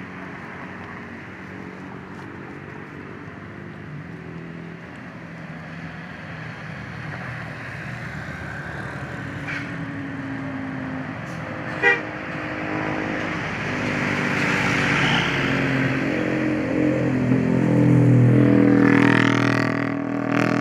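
A bus's basuri telolet horn, a multi-tone air horn, plays a stepping tune over the bus's engine and road noise. The sound grows louder as the bus approaches, peaks near the end, then drops. There is one sharp click about 12 seconds in.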